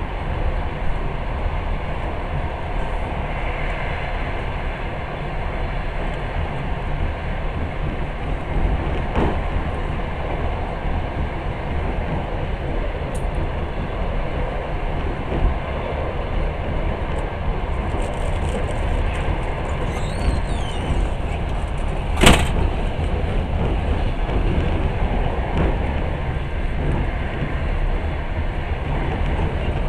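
Passenger train heard from inside the carriage, running steadily on the rails with a constant rumble. There are a few faint high squeals about two-thirds of the way through, then a single sharp knock just after, the loudest sound.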